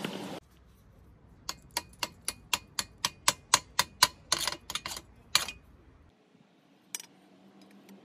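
A chipping hammer knocking slag off a fresh weld bead on a steel bracket plate: a quick run of sharp metallic taps, about four a second for some four seconds, then one more tap a little later. A steady noise cuts off just after the start.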